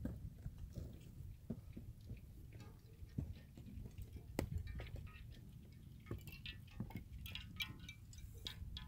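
Thin skim ice floating on the lake, its shards clinking and tinkling against each other like glass, almost like tiny bells. Faint scattered light clicks that grow busier in the last few seconds.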